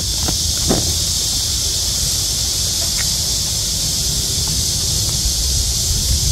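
A steady high hiss with a low wind rumble on the microphone, over which chili pepper plants rustle and stems snap a few times as ripe peppers are picked by hand.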